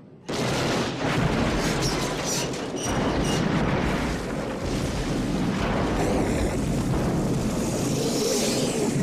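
Movie sound effects of a big explosion as a locomotive crashes: a sudden loud blast about a third of a second in, followed by a long, heavy rumble of fire and debris that keeps going.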